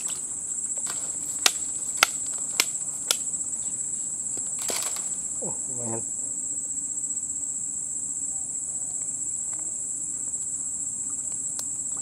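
Steady high-pitched drone of insects, with four sharp clicks in quick succession between about one and a half and three seconds in, and a short rustling burst near five seconds.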